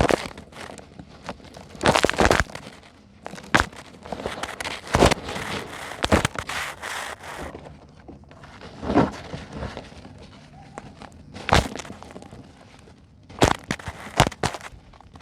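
Lumps of dry sand-and-concrete mix being crushed and crumbled by hand: irregular crunches and crackles, several sharp ones standing out, with gritty crumbling between them.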